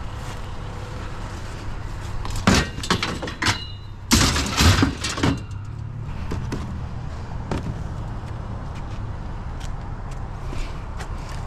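Scrap metal chair-frame parts clanking and rattling as they are handled and knocked together. There are two bursts of hard clangs with a little ringing, about two and a half seconds in and again around four to five seconds in, over a steady low engine hum.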